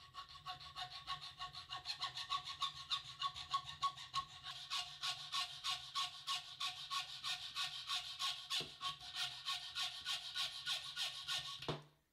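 Hacksaw cutting through a metal piano hinge held in a bench vise: quick, even back-and-forth strokes with a steady ring under them, stopping suddenly near the end as the cut is finished.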